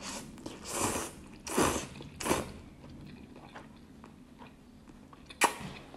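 A person eating noodles close to the microphone: three short eating noises in the first couple of seconds, then quieter chewing, and one sharp click near the end.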